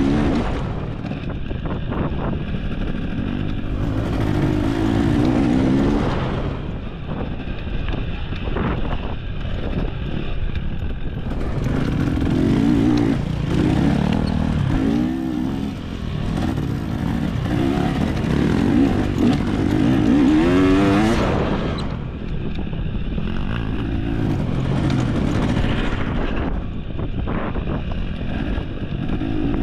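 Dirt bike engine on a trail ride, revving up and easing off over and over as the throttle opens and closes, with a sharp climb in pitch about two-thirds of the way through.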